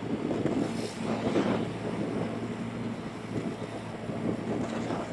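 Motorbike engine running at a steady cruising speed under wind rushing over an action camera's microphone. Another vehicle passes close by near the end.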